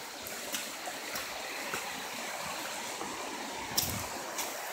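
A stream rushing steadily, with footsteps on leaf litter and rocky ground roughly every half second or so and one sharper knock near the end.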